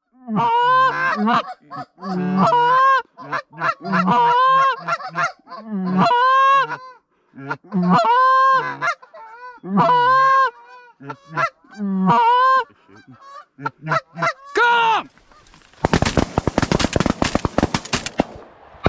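Goose honking: a loud, regular run of two-note honks, about one a second, each starting low and breaking up into a higher honk. Near the end the honks give way to a rapid, noisy crackle.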